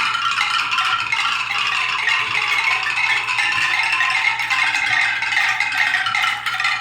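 Many marbles clattering down a marble-run sound toy, a dense continuous rattle of clicks with ringing tones as they strike the sounding petals.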